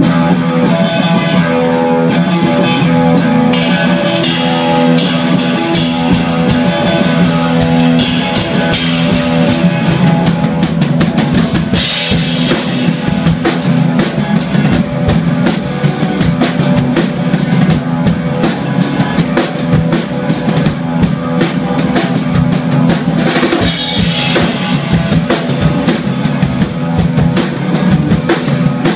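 Live rock band, electric guitar and drum kit, playing loud and instrumental, crashing in all at once at the start. The brighter cymbal wash fills in a few seconds in, with louder crashes about twelve seconds in and again near the end.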